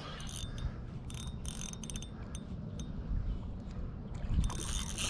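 Spinning reel being cranked in irregular spurts while fighting a hooked fish. Its gears and rotor whir and click, with a longer, louder run of cranking near the end.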